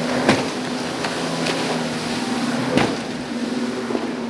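Rigid inflatable boat running fast through rough chop: a steady engine drone under the hiss of spray, with the hull slapping down on the waves a few times, the sharpest slaps just after the start and a little before three seconds in.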